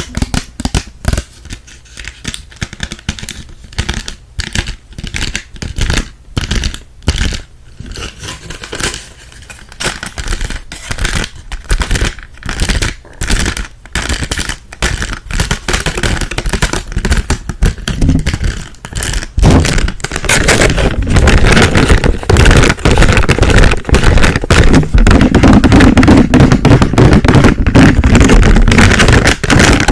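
Close-miked ASMR tapping and scratching on small objects: a run of separate crisp taps and clicks, giving way about twenty seconds in to dense, continuous scratching and rubbing that is louder.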